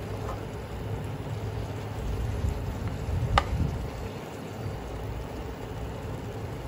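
Water spinach and meat sizzling in a frying pan as they are stirred and turned with a wooden spatula and spoon, with one sharp tap about three and a half seconds in.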